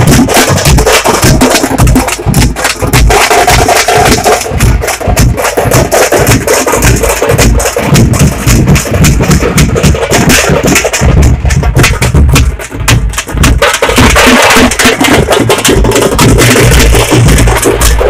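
A tamate drum troupe: many large frame drums beaten with sticks together in a fast, loud rhythm, with deep low beats under the crack of the sticks.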